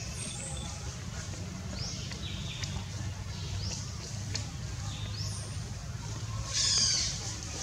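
Short, high falling animal calls about once a second over a steady low rumble, with a louder hissing call nearly seven seconds in.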